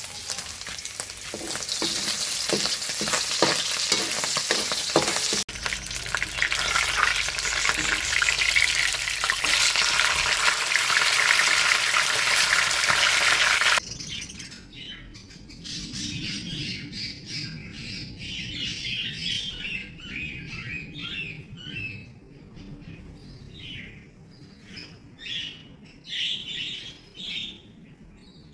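Food sizzling loudly in hot oil in a pan. About halfway through it cuts off abruptly, leaving a quieter stretch with repeated short chirps of birds.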